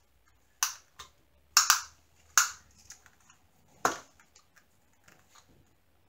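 The plastic film over a diamond painting canvas crinkles as it is handled, in about five short crackles with fainter ticks between.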